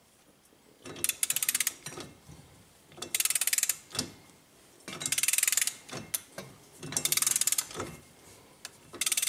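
A ratchet clicking in short bursts on its return strokes as it turns an inner tie rod tool, tightening a new inner tie rod onto the steering rack. Four bursts of rapid clicks about two seconds apart, with a fifth starting at the very end.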